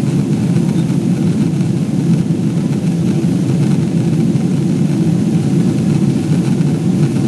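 Steady cabin drone inside a Boeing 777-200 in flight, heard from a window seat over the wing: an even, low rush of jet-engine and airflow noise.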